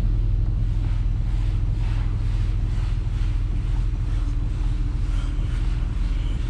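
Steady low rumble of engine and road noise inside the cabin of a 2006 Chevrolet Impala while driving.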